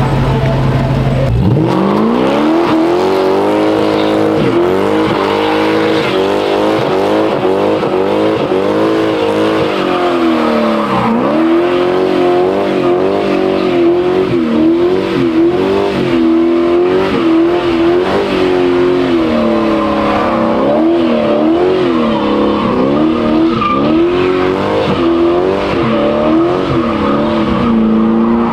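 Car engine revved hard: the revs climb sharply about a second and a half in, then are held high, rising and dipping over and over.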